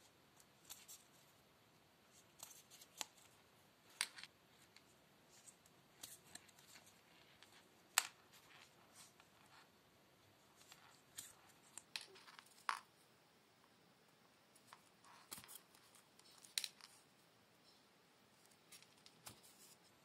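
Hand-stitching leather with two needles: scattered small clicks and short rasps as the needles and thread are pushed and drawn through a leather loop wrapped around a metal buckle ring. The loudest click comes about eight seconds in.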